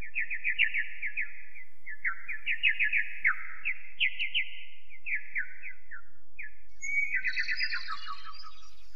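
Birds chirping and singing: quick runs of short whistled notes, joined about seven seconds in by a busier series of higher chirps from a second bird.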